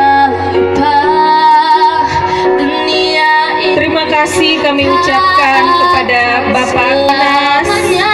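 A schoolgirl singing solo into a microphone, amplified through a PA system, her voice rising and falling in long sustained notes.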